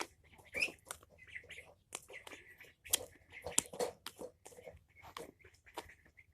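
Homemade slime with beads being poked and squeezed by fingers: quiet, irregular sticky clicks and squelches. Faint chirps of chicks come through now and then.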